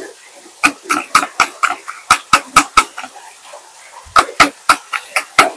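A knife chopping on a cutting board at about four strokes a second: a run of about nine sharp chops, a pause of over a second, then another run starting near the end.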